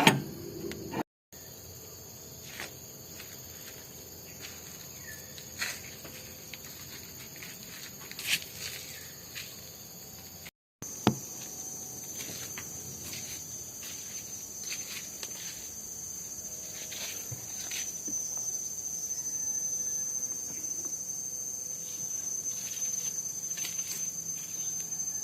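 A steady, high, thin insect drone, like crickets or cicadas, with scattered light clicks and taps. The sound drops out completely twice, briefly.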